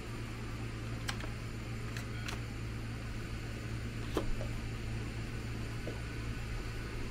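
A push-button paper-cup dispenser clicking as its button is pressed and a paper cup is taken out, with a few small knocks; the clearest click comes about four seconds in. A steady low hum runs underneath.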